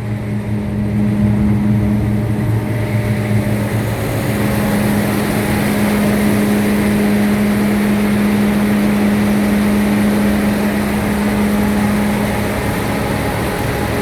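Combine harvester running steadily with a constant low drone.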